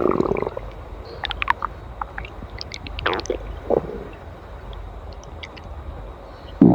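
Human stomach gurgling and growling: a louder rumble fades out at the start, then short squeaky pops and gurgles come here and there, with a brief louder gurgle near the end.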